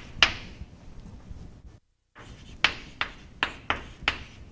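Chalk writing on a chalkboard: a series of sharp taps and short scratching strokes as letters are written, coming about two or three a second in the second half. The sound cuts out completely for a moment about two seconds in.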